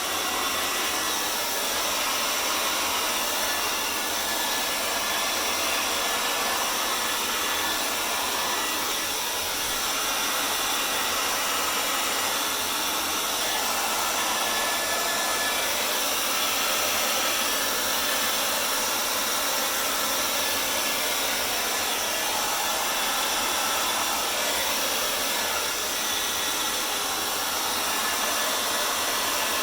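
Handheld hairdryer blowing steadily, a constant rushing whir of air and motor used to push wet poured acrylic paint across a canvas.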